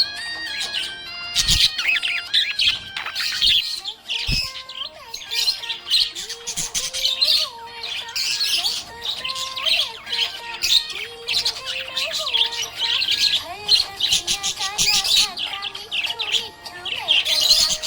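Budgie chirping and chattering in quick, continuous runs of high chirps, with a melody playing underneath.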